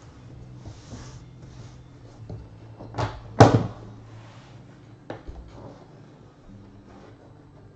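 The latches of a briefcase-style Flawless Football card box snapping open: two sharp clicks about three seconds in, the second the loudest, then a lighter click about two seconds later, with handling noise from the case between them.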